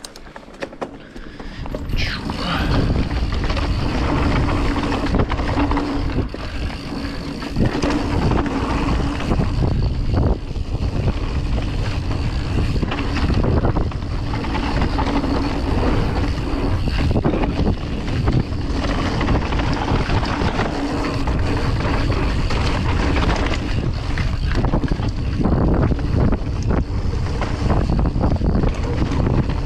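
Wind buffeting the camera's microphone mixed with knobby mountain bike tyres rolling over a dirt singletrack, with knocks and rattles from the bike over bumps. It swells about two seconds in as the bike gets up to speed, then runs on as a loud, steady rumble.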